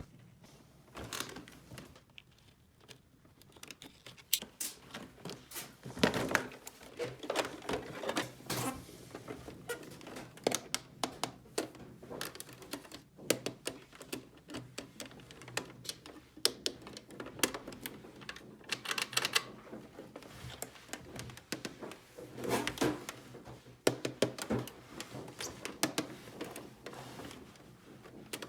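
Small plastic toy pieces being handled, set down and clicked together: an irregular stream of light clicks and taps, with a few louder clusters.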